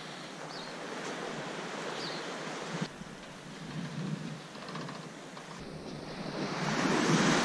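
Steady rushing outdoor noise of wind on the microphone, growing louder near the end, where small waves wash onto a sandy beach.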